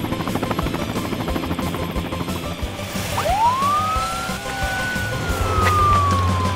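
A police siren gives one long wail about three seconds in: it rises sharply, holds, then slowly falls. It follows a stretch of busy clattering noise.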